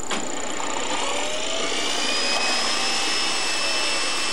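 Lab machine motor switched on with a click, spinning up in a rising whine over about two seconds, then running at a steady high pitch.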